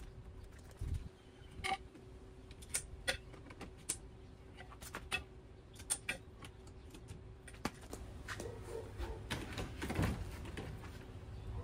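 Scattered clicks and knocks of a scooter's metal surf-rack parts and hand tools being handled. Near the end a louder bump and rubbing come as a surfboard is set into the rack.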